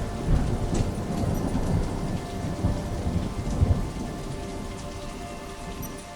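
Steady rain with a low rolling rumble of thunder that eases off over the last couple of seconds.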